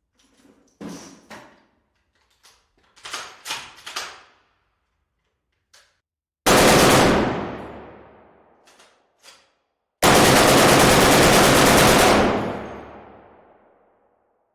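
M2 Browning .50 calibre heavy machine gun firing. Fainter sharp cracks come first, then a brief loud burst about six and a half seconds in, then a longer burst of about two seconds, each trailing off in a long echoing tail.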